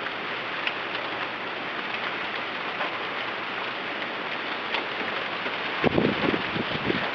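Steady hiss of wind-driven rain, with a few sharp drop ticks. About six seconds in, gusts of wind start buffeting the microphone in uneven low thumps.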